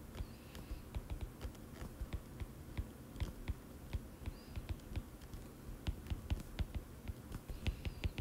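Stylus tip tapping and clicking on a tablet's glass screen during handwriting: many light, irregular ticks, a few to several a second.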